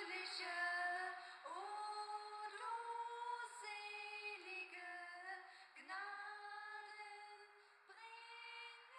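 A woman's voice singing a slow melody of held notes, each lasting about half a second to a second, some sliding up into the note.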